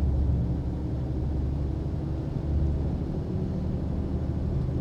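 Heavily loaded semi truck running down a steep grade, heard from inside the cab: a steady low engine drone and road rumble.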